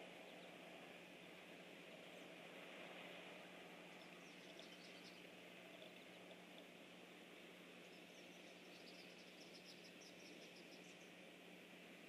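Near-silent outdoor ambience: steady hiss with a low hum, and faint high, rapid trills about four seconds in and again from about eight to eleven seconds.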